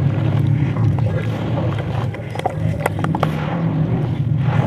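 Sand-cement being crumbled and worked by hand, giving scattered crunchy crackles with a few sharper cracks about two and a half to three and a half seconds in, over a steady low rumble.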